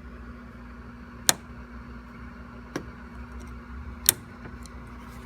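A few sharp clicks: two loud ones about three seconds apart and a fainter one between them, over a steady low hum.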